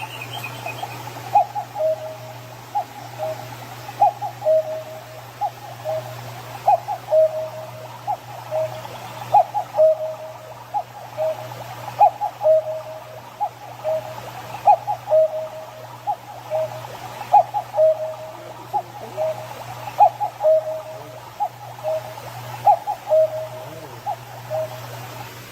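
Kendal handcrafted wood cuckoo clock calling the hour: a two-note cuckoo, higher then lower, repeated about nine times at an even pace, over a steady low hum.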